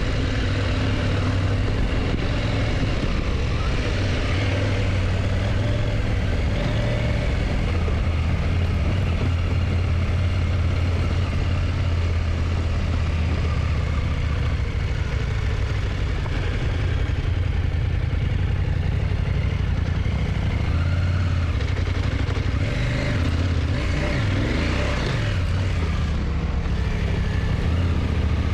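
KTM motorcycle engine running steadily under way, its pitch dipping and rising a few times near the end as the revs change.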